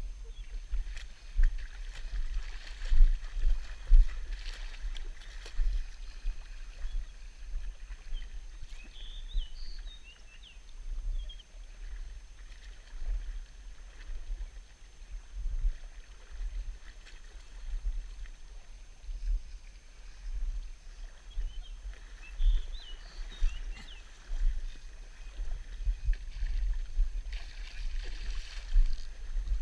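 Outdoor river ambience: an uneven low rumble gusting on the microphone over a faint wash of flowing water, with a few short high chirps about nine seconds in and again about twenty-two seconds in.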